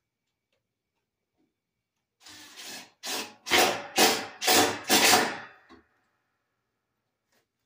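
A hand tool working wood: a few soft strokes, then about five strong rasping back-and-forth strokes at roughly two a second, ending with a short small stroke.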